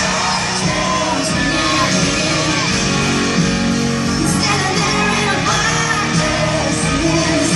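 Live concert performance of a country-pop song: a woman's lead vocal over a full band, echoing in a large arena.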